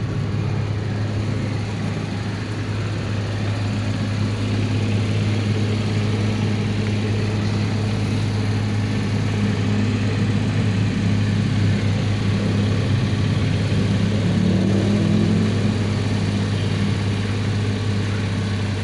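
Mini excavator's diesel engine running steadily, with a constant low hum.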